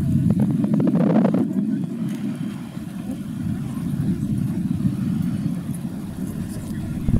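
Outdoor city ambience: road traffic making a steady low rumble, with a brief louder swell about a second in and a few short knocks.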